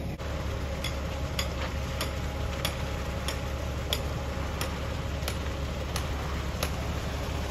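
A concrete mixer truck running steadily as a low rumble, with a sharp tick repeating about every two-thirds of a second from about a second in.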